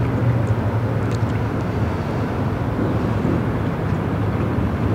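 Steady low rumble of outdoor background noise, with a low hum that is strongest at the start and eases after about a second.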